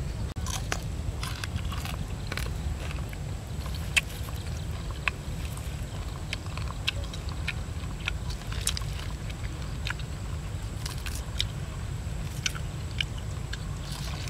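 A man eating roast chicken with his hands: chewing and smacking, with scattered short clicks as he tears and bites the meat. A steady low rumble runs underneath.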